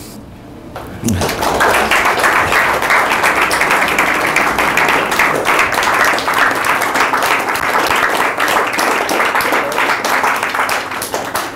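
Audience applauding. It starts about a second in and eases off near the end.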